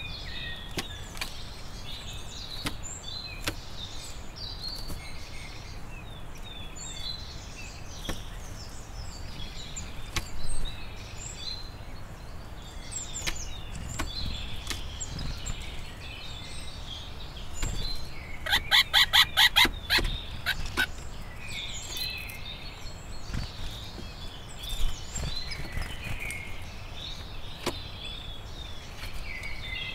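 A chorus of wild songbirds singing, with scattered light taps. About two-thirds of the way in comes a loud run of about ten quick, evenly spaced sharp clicks.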